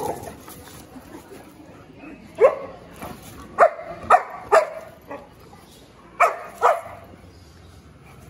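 Dog barking at another dog in short, sharp barks: about six of them, the first a couple of seconds in, several coming in quick pairs.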